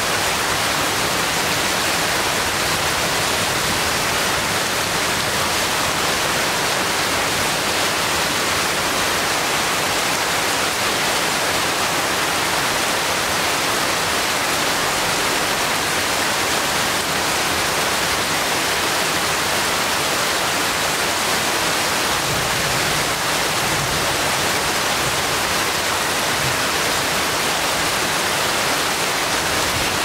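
Heavy rain falling steadily on forest foliage, a dense, even hiss that holds at one level throughout.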